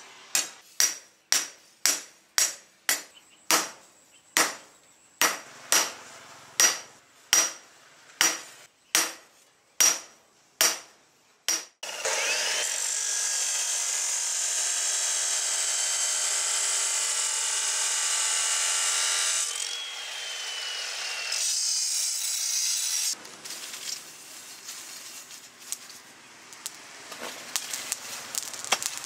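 Hand hammer blows on a rebar blade over a steel-post anvil, about two a second, each with a short metallic ring. About twelve seconds in they give way to a loud steady grinding of steel that throws sparks, its pitch gliding up and down, and then to a quieter steady rushing.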